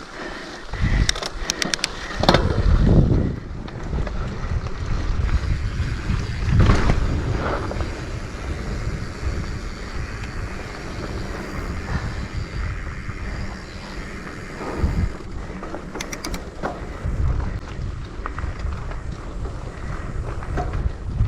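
Mountain bike riding over a rough dirt trail: wind rumbling on the microphone and tyres grinding over the ground, with bursts of sharp rattling clicks about a second in and again around sixteen seconds.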